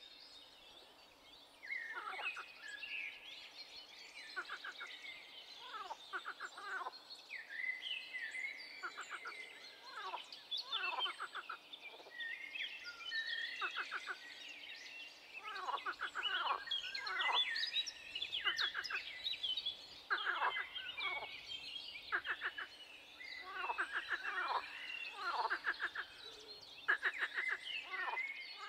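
A chorus of wild animal calls, many overlapping: rapid chattering trains of pulses that fall in pitch, repeated over and over. A faint steady hum lies underneath.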